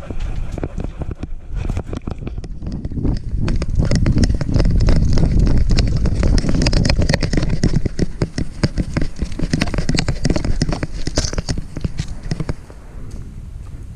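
Camera strapped to a dog's back, jostled as the dog trots and runs down a dirt path: rapid irregular knocks and rattles over a low rumble. The knocking grows heavier in the middle and drops off near the end.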